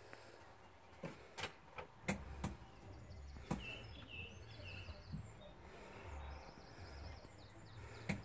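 Scattered sharp taps and knocks, most of them in the first few seconds and one more near the end, as kittens paw at a plastic cat flap and scrabble on a wooden ramp. A few faint bird chirps sound in the background.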